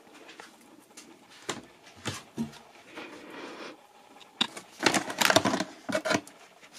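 Things being handled on a kitchen counter: scattered light knocks and clicks, then a louder spell of crinkling and rustling from about four and a half seconds in as a plastic dog-treat packet is handled.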